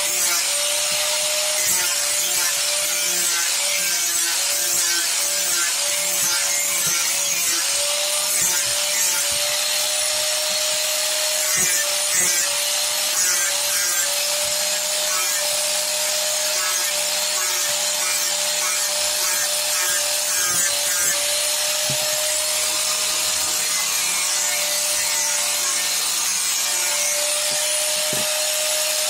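Electric angle grinder with a disc grinding into wood, its motor whining steadily under load with a slight waver as the disc bites.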